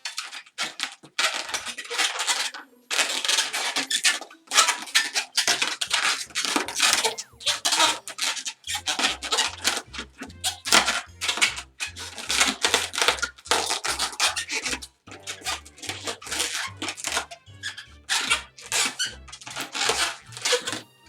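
Latex balloon squeaking and rubbing as it is twisted and looped by hand. Background music with a stepping bass line comes in about five seconds in.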